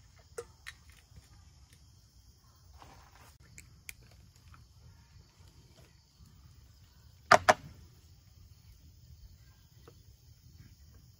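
Small clicks and knocks of a plastic bottle, plastic measuring cup and camp cook pot being handled, with two sharp clacks in quick succession about seven seconds in. Insects keep up a steady high hiss behind.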